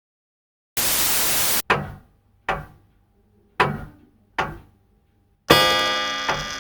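A second-long burst of loud static, then four heavy thunks about a second apart, each dying away quickly, then a loud buzzing tone that starts near the end and slowly fades.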